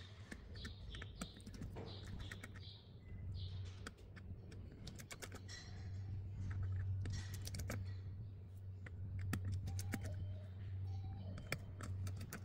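Irregular small clicks and taps of a precision screwdriver and fingertips on the opened iPhone 11's metal shield plate and frame, over a steady low hum.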